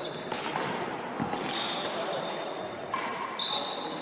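Badminton play on a sports hall floor: a few sharp hits of racket on shuttlecock, spaced a second or more apart, with short high squeaks of sneakers on the court surface. The sounds echo in the large hall.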